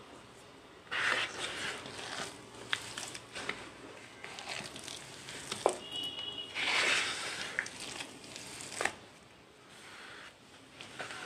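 Hands crumbling and squeezing powdery white cement clumps in a bowl: a soft gritty crunching and rustling with scattered crackles. It swells into louder squeezes about a second in and again a little past the middle.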